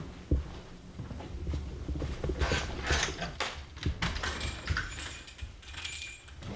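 Footsteps, then the clicks of a front door's lock and latch being worked and the door being pulled open.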